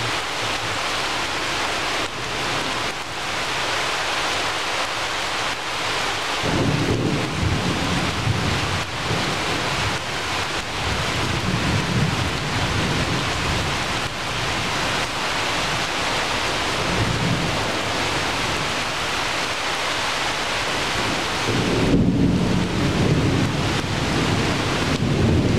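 Steady, loud rain falling through tree foliage. Low rumbling swells in about six seconds in and again near the end.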